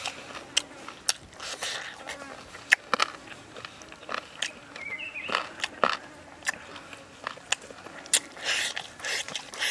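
A person eating curried pork ribs, biting and gnawing meat off the bone: an irregular run of sharp wet clicks, lip smacks and sucking sounds.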